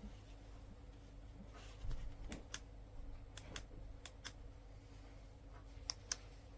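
Light clicks, mostly in quick pairs, coming several times over a faint steady hum.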